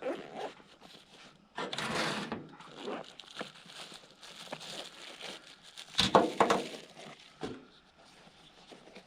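Rustling and crinkling handling noises with scattered clicks: a longer rustle about two seconds in and a cluster of sharper knocks about six seconds in.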